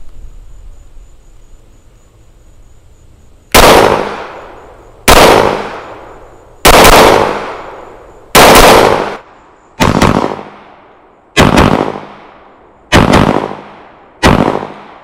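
Glock 30 .45 ACP compact pistol firing a string of loud shots in eight bursts about one and a half seconds apart, beginning a few seconds in, each report ringing out for about a second.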